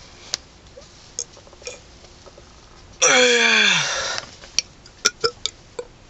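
A man's loud burp about three seconds in, lasting about a second and falling in pitch. A few faint sharp clicks are scattered around it.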